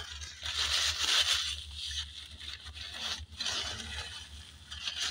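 Crinkling and rustling of a fast-food paper sandwich wrapper being handled and crumpled, in several uneven spells, over a steady low hum.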